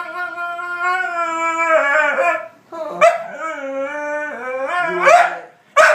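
Male dog whining and howling in two long, drawn-out cries, the second rising in pitch near its end: a male dog frustrated by a female in heat.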